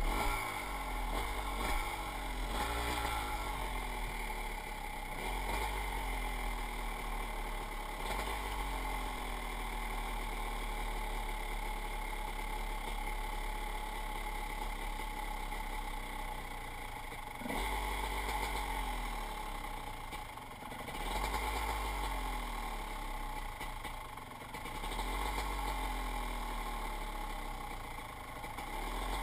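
Dirt bike engine idling, with the throttle blipped several times so the pitch rises and falls.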